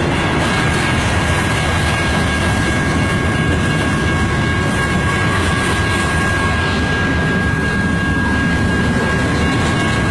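Freight cars of a Canadian National mixed freight train rolling past a grade crossing: a steady, loud rumble of wheels on rail, with a steady high tone running through it.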